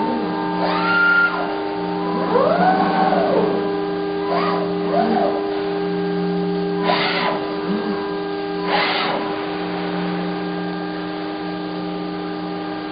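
Automated car-door assembly machinery: a steady machine hum of several constant tones, with motors whining up and falling back down in pitch as the clamping fixtures move, and two short hissing bursts about seven and nine seconds in.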